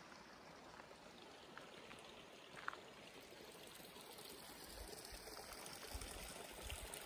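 A small stream trickling faintly, with a few low thumps near the end.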